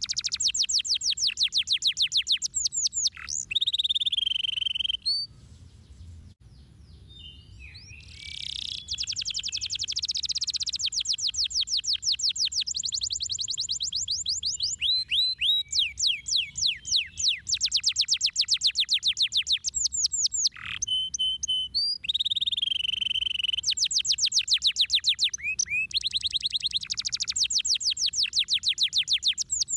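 Domestic canary singing: long, fast trills of rapidly repeated, high, downward-sweeping whistled notes, with a lull of a few seconds about five seconds in and a short break about two-thirds of the way through.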